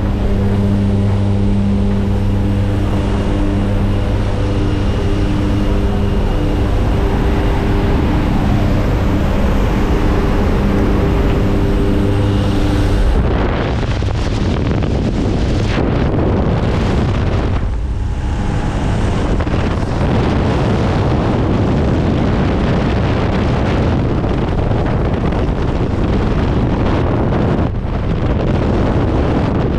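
Steady drone of a jump plane's engines heard from inside the cabin, giving way about 13 seconds in to loud wind rushing over the microphone as the skydiver exits into freefall.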